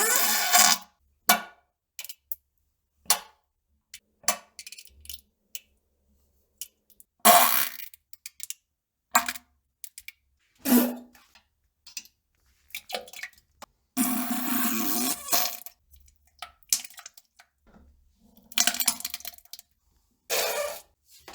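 More than a dozen short fart and toilet-plop sounds, cut together with dead silence between them. The longest, a fart of about a second and a half, comes about two-thirds of the way in.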